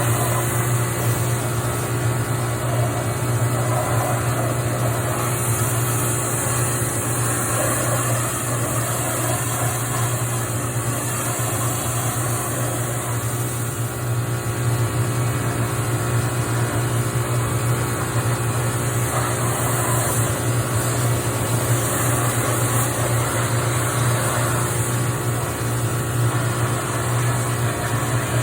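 Pressure washer running steadily with a constant motor hum, and the hiss of its water jet spraying over a tractor.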